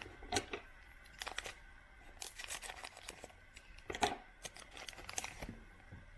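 Trading cards being handled and flipped through by hand: a string of short swishes and clicks as card stock slides over card stock, the sharpest about four seconds in.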